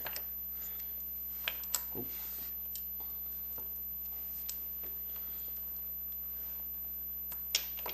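A few sharp, faint clicks of a new motorcycle roller chain being handled onto the front sprocket: several about a second and a half to two seconds in, and one more near the end, over a steady low hum.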